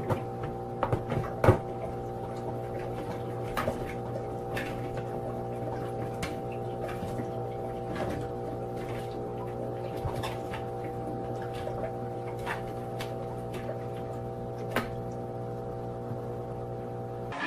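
Sunbeam humidifier's fan running with a steady hum, with a few loud plastic knocks in the first second and a half as its water tank is handled and set in place. Scattered small clicks and drips of water follow.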